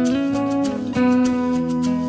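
Instrumental background music led by guitar, with new notes struck at the start and again about a second in.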